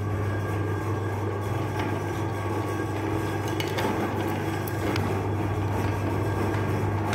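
Electric meat grinder running with a steady motor hum while it grinds chocolate bars, with a few sharp clicks about four seconds in.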